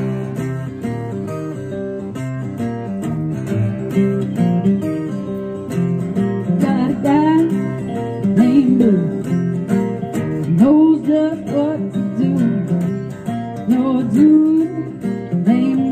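Live acoustic music: two acoustic guitars strummed together, and a woman's singing voice comes in about six seconds in.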